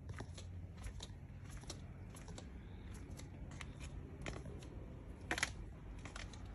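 Footsteps going down concrete stairs: irregular light clicks and scuffs of shoes on the treads, with a sharper pair of clicks about five seconds in, over a steady low hum.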